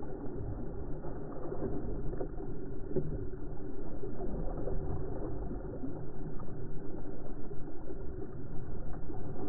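Water rushing and splashing along the hull of a small sailboat heeled over under sail, mixed with wind buffeting the deck-mounted microphone. A low, muffled, unsteady rush that swells and fades.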